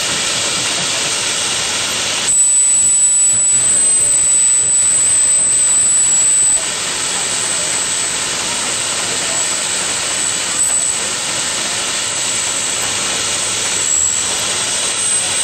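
A 1904 steam fire engine pumping: a steady hiss of steam and high-pressure hose streams. From about two seconds in, a louder, higher hiss with a thin whistling tone comes in and cuts off suddenly about four seconds later.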